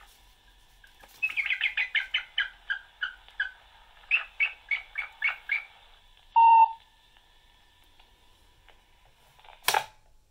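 Recorded bald eagle calls played through the small speaker of a 1979 Microsonics 300 microphonograph reading a sound plate: a rapid stuttering run of high squealing, cackling notes, then a shorter run of about six. About six seconds in comes a short, loud steady tone, and near the end a single sharp click from the player.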